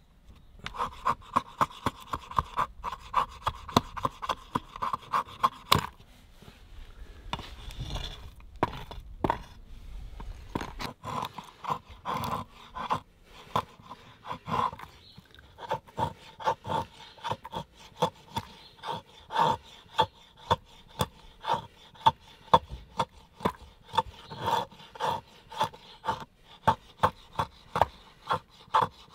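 Short-sword blade shaving curls off a fatwood stick: quick, rhythmic scraping strokes at about three a second. The strokes break off for a few seconds about six seconds in, then resume.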